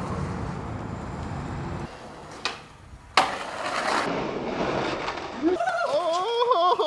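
Skateboard wheels rolling on concrete, then a small click and, about three seconds in, a sharp loud smack of the board hitting the ground, followed by a fading rolling and scraping noise. Near the end a man's voice calls out with a wavering pitch.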